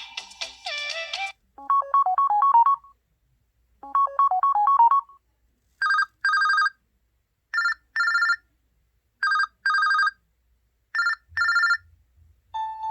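LG X2 (K30) stock phone ringtones. One tune ends about a second in, then a new ringtone plays two short stepping melodic runs followed by four pairs of bright electronic double rings, evenly spaced. Another tune starts just at the end.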